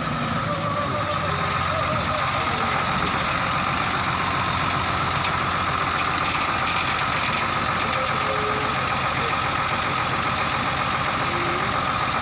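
Truck engine running steadily with an even, unchanging sound and a faint steady whine above it.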